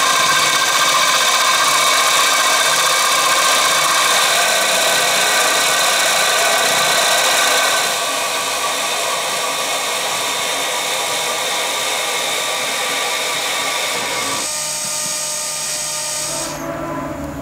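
An end mill on a milling machine cutting a slot in cast aluminium, a loud, steady, high-pitched cutting noise. Near the end the high cutting sound drops away, leaving a lower machine hum.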